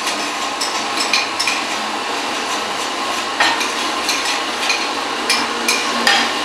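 Metal spoon stirring in a ceramic cup, clinking against its sides about eight times at irregular intervals over a steady background noise.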